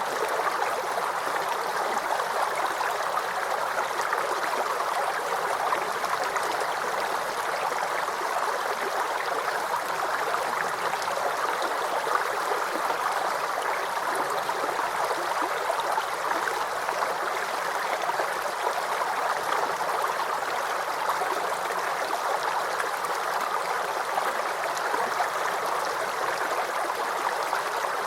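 Small creek babbling and gurgling over stones, a steady rush of running water with fine trickling detail throughout.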